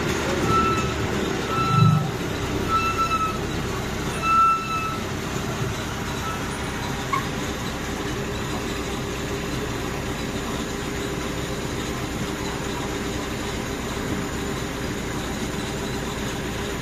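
Land train's engine running steadily on the move, with a row of short, high electronic beeps, about one every 0.7 s, over the first five seconds or so, and a single low thump about two seconds in.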